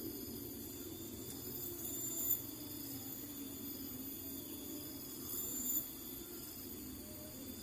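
Insects shrilling in a steady high-pitched chorus that swells twice, over a low steady hum.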